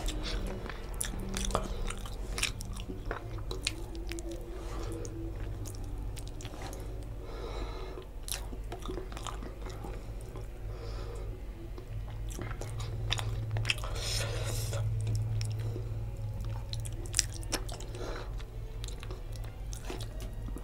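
A person chewing a mouthful of rice and tilapia fish curry, with many wet mouth clicks and smacks. A steady low hum runs underneath.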